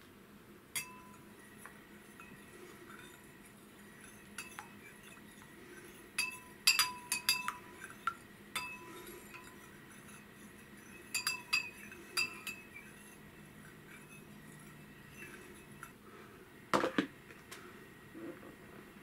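Metal spoon clinking against a small glass bowl as it stirs and breaks up set mint jelly, in scattered bright ringing taps that come in a quick cluster about six seconds in and again around eleven seconds. A duller knock comes near the end.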